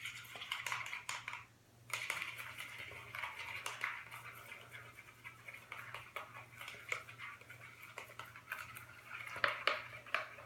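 Glue and shaving cream being stirred in a bowl with a paintbrush: a continuous scratchy, squelching scraping with small clicks, pausing briefly about a second and a half in.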